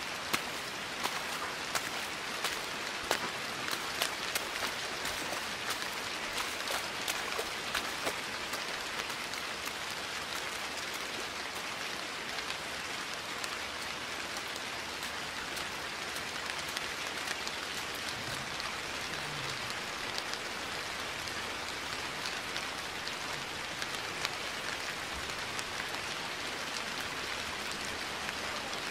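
Steady rain falling on wet, water-covered paving, an even hiss. Sharp drop splats crackle through it, thickest in roughly the first ten seconds and sparser after.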